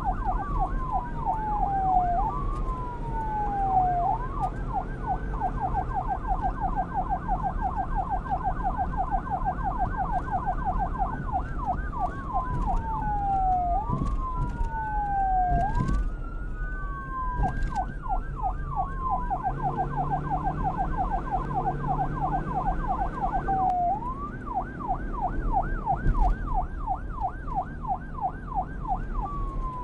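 Police car electronic siren switching between a fast yelp, several sweeps a second, and slower wails that fall and rise over a couple of seconds each, over a steady low rumble.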